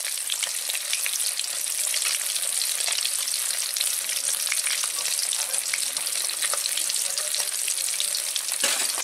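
Three fish steaks frying in hot oil in a kadai: a steady sizzle with dense, irregular crackling pops.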